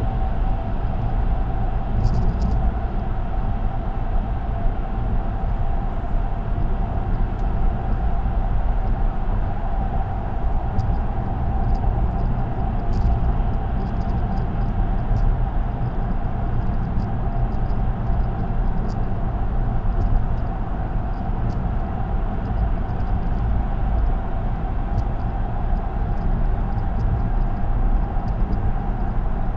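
Steady road noise of a car cruising on an expressway: tyre hum over a low rumble, with a steady mid-pitched tone and a few faint light ticks.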